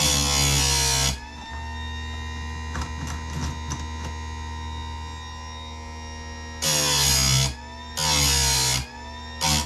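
A small bench-mounted electric chainsaw-chain grinder runs with a steady hum, and its wheel grinds chain teeth in harsh bursts: one of about a second at the start, then two near the end with a brief third. In between come a few light clicks as the chain is advanced to the next tooth against the stop catch.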